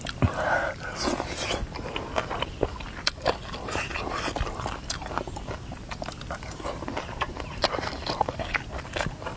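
Close-up eating noises: biting and chewing with many sharp crunches and wet smacks, irregular and scattered throughout.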